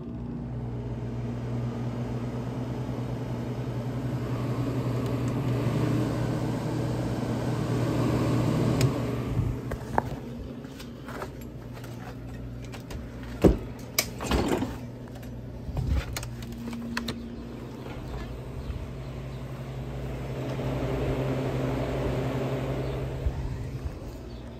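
Vintage Airtemp room air conditioner switched on and running: a steady low hum with air rushing through it, swelling for a few seconds twice. Several clicks and knocks come around the middle, one sharp click the loudest.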